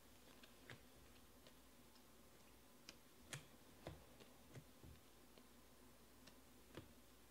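Faint, irregular clicks and ticks of glossy Panini Prizm baseball cards being thumbed through and slid off a stack in the hand, the loudest a little past three seconds in.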